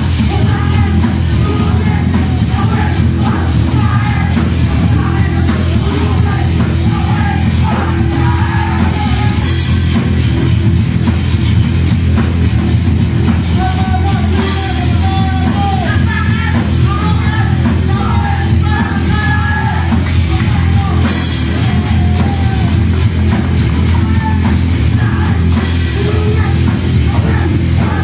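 Hardcore punk band playing loud, with yelled vocals over distorted guitars and drums. Four crashes stand out, at about a third of the way in, halfway, three quarters and near the end.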